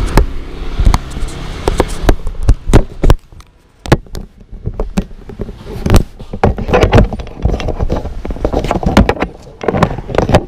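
Handling noise from a GoPro on a neck mount being adjusted by hand: irregular knocks, clicks and rubbing right against the camera, with a short lull about three seconds in.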